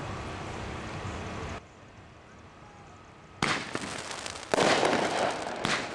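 Consumer aerial firework going off: a sharp report a little over halfway through, a second about a second later, then dense crackling.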